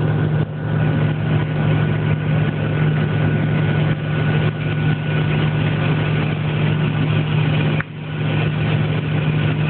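Steady, loud droning hum of laboratory machinery, strongest in the low range with a hiss above it. It dips briefly about eight seconds in.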